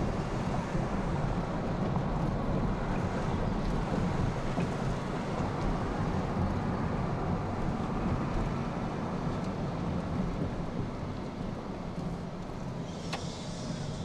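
Car cabin noise while driving slowly: a steady rumble of engine and tyres on the road heard from inside the car, easing a little toward the end, with a single sharp click near the end.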